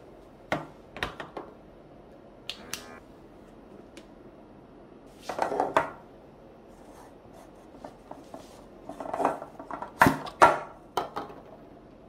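Plastic vacuum food-storage containers and their lids being handled on a countertop: scattered clicks and knocks, a short rubbing scrape near the middle, and a denser run of sharper knocks and scrapes near the end as a lid is taken off.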